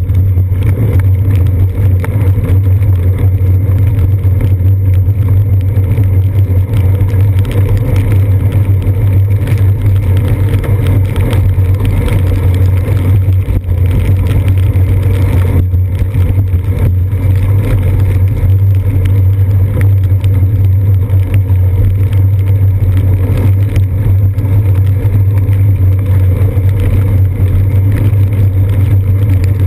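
Loud, steady low rumble from a bicycle riding on wet pavement in rain, picked up by a seat-post-mounted GoPro Hero 2 through its lens cover: wind, tyre and frame vibration.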